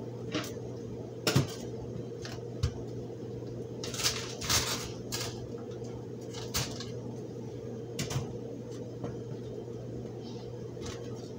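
Kitchen knife cutting the hard core out of cabbage quarters on a chopping board: irregular crunches and taps of the blade and cabbage on the board, with a few bunched about four seconds in and again about eight seconds in. A steady low hum runs underneath.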